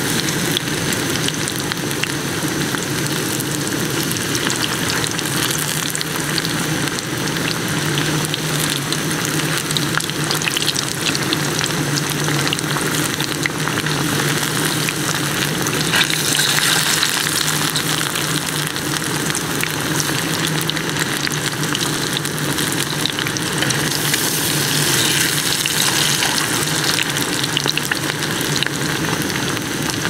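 Besan-battered egg and potato fritters deep-frying in hot oil in a steel pan: a dense, steady sizzle and crackle that swells louder twice, about halfway through and again near the end.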